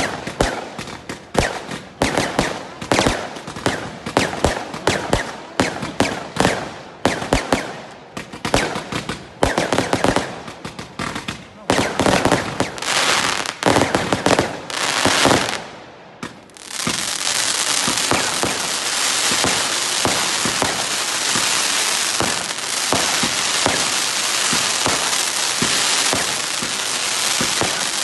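Fireworks going off in rapid succession: a long string of sharp bangs for about sixteen seconds. After a brief lull they become a dense, unbroken barrage with no gaps between the reports.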